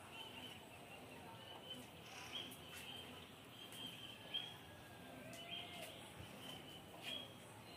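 A bird calling faintly in the background: short high chirps repeated roughly once a second, over outdoor hiss, with a few soft clicks.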